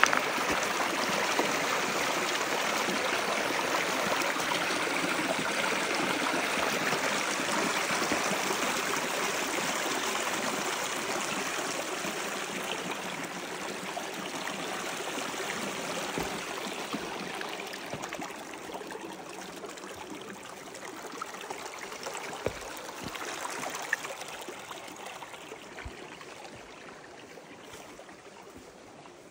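Mountain stream rushing over rocks, a steady wash of water that grows gradually fainter over the second half, with a few light knocks near the end.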